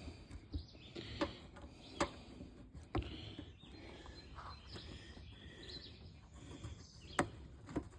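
Scattered light clicks and taps as a screw is worked into place by hand, with birds chirping faintly in the background.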